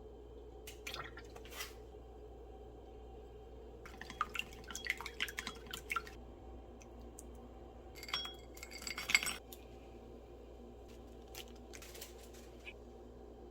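Dishes and utensils clinking and clattering in a few short bursts during food preparation, loudest about nine seconds in, over a steady low hum.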